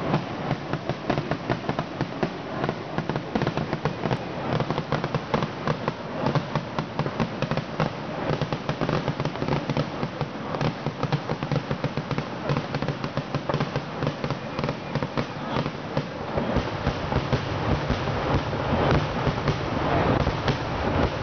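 Temple festival fireworks going off in a continuous barrage: a dense, rapid rattle of many bangs and crackles, several each second, with a heavier low rumble building in the last few seconds.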